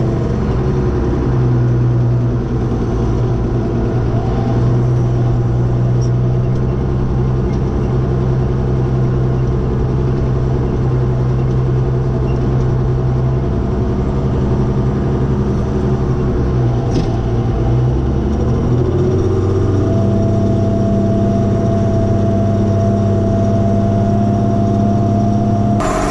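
Ford TW-series tractor's six-cylinder diesel running steadily under load while pulling a field cultivator, heard close to its vertical exhaust stack. The engine note shifts about three-quarters of the way through.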